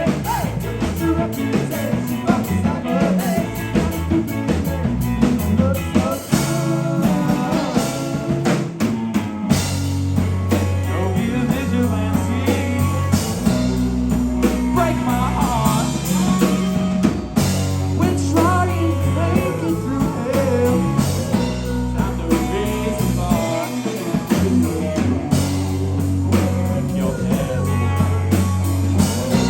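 Live rock band playing, with drum kit, bass guitar and electric guitar.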